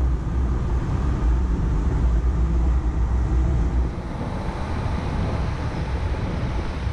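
Volkswagen Amarok pickup driving off-road: a steady low rumble of engine and running gear, which drops away about four seconds in, leaving a lighter, even noise.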